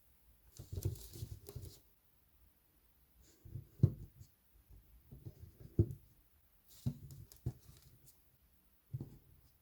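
Dry soap pieces being crunched and handled, in five short crackly bouts a second or two apart.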